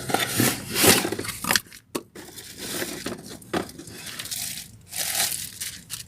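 Packaging being unpacked by hand: irregular crinkling and rustling, with a brief pause just under two seconds in.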